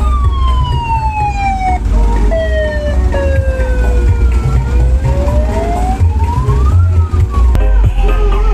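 A slow siren-like wail over heavy, pulsing bass from a large parade sound system. The pitch sinks steadily for about four and a half seconds, climbs again, then starts to fall near the end.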